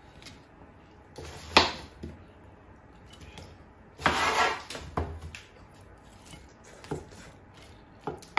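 Roasted potatoes served onto a china plate with a metal spoon and a wooden spatula: spoon and spatula clinking and knocking against the plate, the sharpest knock about one and a half seconds in, with a short scraping rustle about four seconds in as potatoes are slid off.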